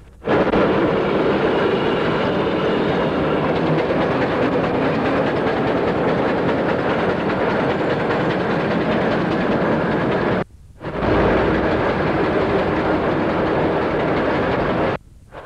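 Steam rollers running along the road, a steady mechanical noise that cuts out for a moment about ten and a half seconds in and again near the end.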